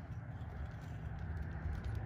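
Faint light steps on dirt over a low steady rumble of outdoor background noise.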